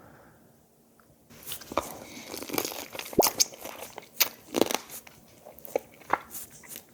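Biting and chewing into raw soy-sauce-marinated crab (ganjang gejang), with sharp irregular crunches and cracks of the shell starting about a second in.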